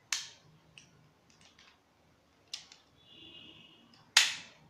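Sharp clicks from a Bell 1911 airsoft pistol being handled. There is a loud click at the start, another about halfway, and the loudest just before the end, with a few softer clicks between.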